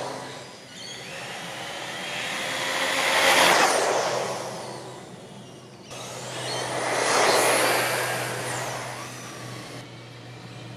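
Brushless-motor RC buggy on a 3S LiPo battery speeding past twice on a speed run. Each pass is a high electric whine with tyre rush that swells and fades.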